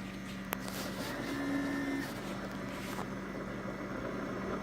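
Keurig K55 single-serve coffee maker starting a brew cycle: its pump and heater run with a steady mechanical hum, and there is a single click about half a second in.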